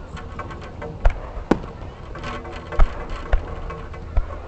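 Aerial fireworks going off: about five sharp bangs at irregular intervals, over a steady background noise.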